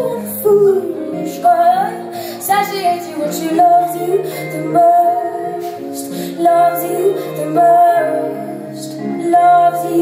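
A woman singing a slow song live, with guitar accompaniment holding notes underneath her voice.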